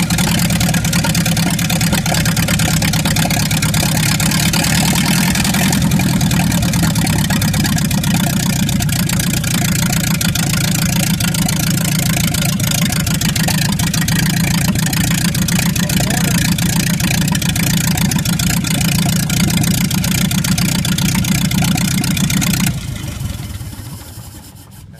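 1929 Ford Model A's four-cylinder flathead engine, in a doodlebug tractor conversion, running steadily. Near the end it is shut off and dies away over a couple of seconds.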